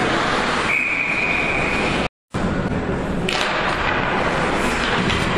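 Referee's whistle blowing one steady, high note for about a second and a half, stopping play with the goalie covering the puck. It sounds over the steady noise of the arena, and the sound cuts out for a moment just after the whistle ends.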